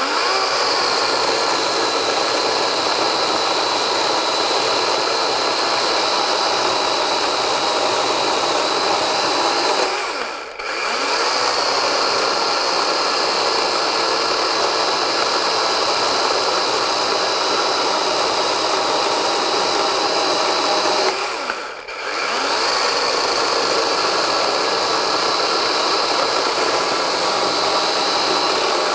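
DEWALT 12-inch XR cordless chainsaw cutting wood under steady load. It eases off briefly twice, about a third and two-thirds of the way through, between three cuts.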